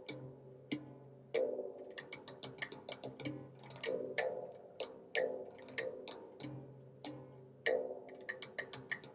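Darbuka drum solo music: fast runs of crisp, sharp high strokes, broken every few seconds by heavier, deeper strokes that ring on.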